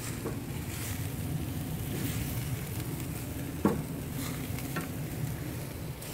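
Bacon-wrapped steak rolls sizzling on a hot grill grate, a steady hiss. Metal tongs clack once sharply against the grate about halfway through, with a few lighter ticks.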